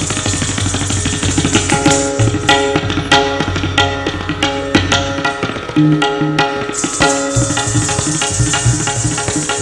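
Indian classical dance music led by tabla, struck in an even rhythm of pitched strokes over a low steady drone. A high shimmer above it drops out about two seconds in and comes back near the end.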